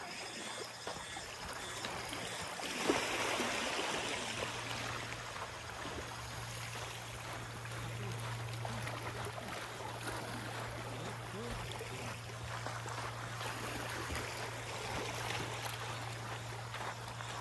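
Small waves washing and lapping on a sandy beach, with a brighter splash about three seconds in, over a steady low hum.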